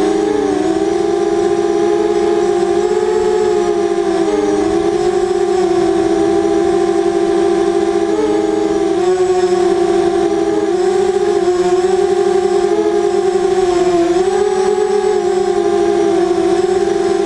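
FPV racing quadcopter's four T-Motor 2000Kv brushless motors spinning 5045 bullnose propellers, heard from onboard: a loud, steady buzzing whine whose pitch wavers and dips briefly every few seconds, over a low rush of wind.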